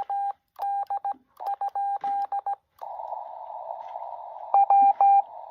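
Morse code (CW) tones from a portable ham radio transceiver, a single pitch keyed in dots and dashes. About halfway through, the code gives way to a short stretch of receiver hiss heard through a narrow filter. Louder code starts near the end.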